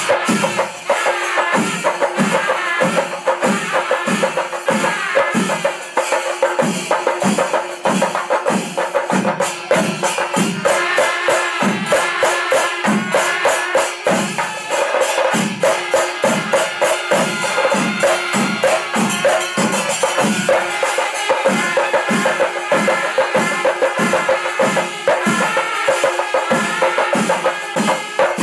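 Panchari melam percussion ensemble playing: chenda drums beating a steady, even rhythm of about two to three strokes a second, with ilathalam hand cymbals clashing and ringing over them.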